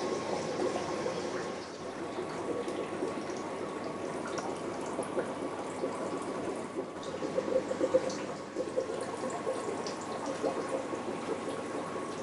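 Aquarium water bubbling and trickling steadily, a dense crackle of small splashes, with a faint steady whine underneath.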